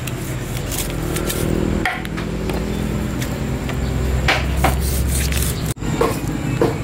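A steady low hum runs under scattered short scrapes and clicks. Near the end, after a brief break, a knife scrapes as it slices along a dorado on a wooden cutting block.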